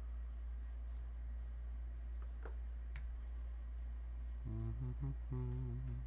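A steady low hum throughout, with a couple of computer mouse clicks around the middle. Near the end a man hums a few notes under his breath, in three short pieces.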